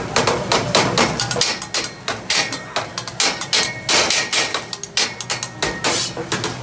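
Metal spatula and fork clacking and tapping on a steel teppanyaki griddle: many sharp clacks in quick, uneven succession.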